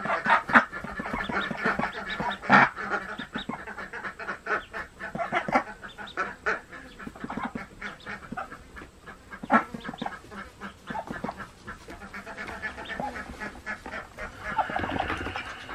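A Golden 300 mother duck calling over and over in short, harsh quacks while defending her newly hatched ducklings, with the ducklings peeping around her. The loudest calls come about half a second in, near two and a half seconds, and again near nine and a half seconds.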